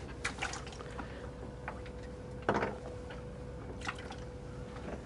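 Water dripping and splashing in short bursts over a steady low hum, with the loudest splash about two and a half seconds in.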